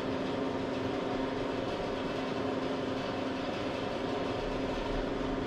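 Steady machine hum of a running motor, with a few fixed tones over a low rumble that does not change.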